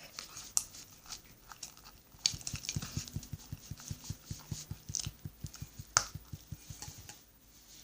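Sticky homemade slime being mixed in a bowl: a quick run of wet squelching pulses through the middle, with a few sharp clicks.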